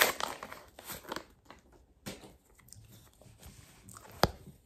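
Wrapper of a pack of AFL trading cards being torn and crinkled open, loudest at the start and fading within about a second, then faint rustling of the cards and a sharp tap near the end.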